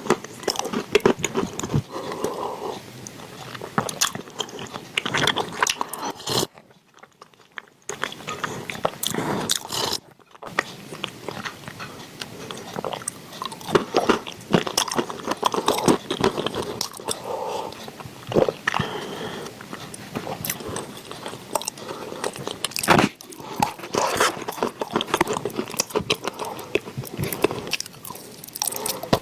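Close-miked biting, crunching and chewing of wet chalk, a dense run of sharp crunches and crackles, broken by a near-silent gap of about a second and a half a quarter of the way in.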